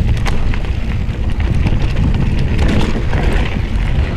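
Mountain bike descending a dry, rocky dirt trail at speed: wind rushing over the action camera's microphone, mixed with tyres crunching over loose dirt and stones and a steady run of small clicks and rattles from the bike.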